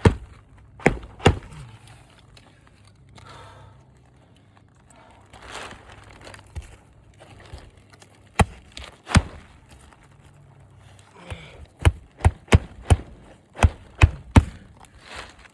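Sharp knocks on the roof as nails are driven in: two about a second in, two more later, then a quick run of about eight near the end. Between them is rustling and crinkling, like a plastic tarp being handled.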